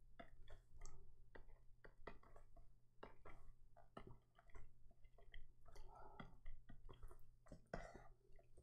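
Faint, irregular clicking of a computer mouse, several clicks a second, over a low steady hum.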